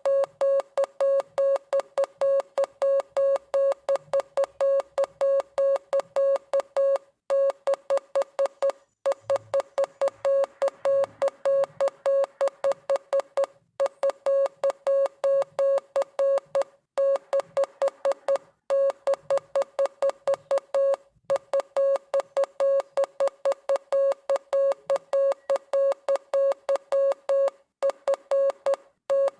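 Morse code sent as a steady mid-pitched beep keyed on and off rapidly into dots and dashes, with brief pauses between groups.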